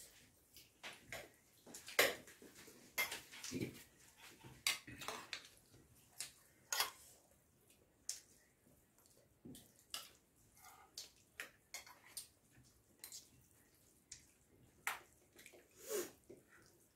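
Eating rice and curry by hand from metal plates: irregular soft clicks, clinks and wet squelches of fingers mixing and scooping rice against the plates, with a few sharper clicks.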